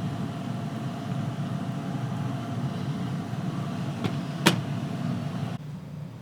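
Steady low mechanical hum with a faint steady tone over it, broken by a sharp click about four and a half seconds in; the hum drops abruptly near the end.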